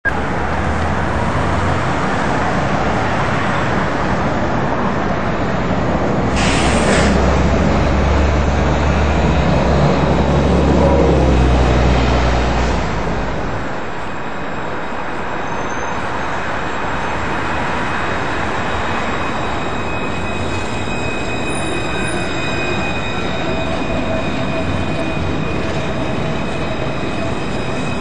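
Street traffic noise with a heavy low rumble that fades out about halfway through. Then a Luas Alstom Citadis light-rail tram comes round curved track, its wheels squealing in several thin, steady high tones, and passes close near the end.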